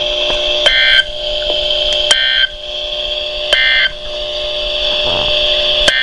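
NOAA Weather Radio broadcast sending three short bursts of digital alert-header data tones, about a second and a half apart, the coded signal that comes just before a weather alert. Played back through computer speakers, over a steady whine.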